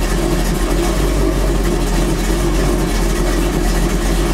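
Car engine idling steadily, running with the battery disconnected: it stays running, a sign that the alternator is charging.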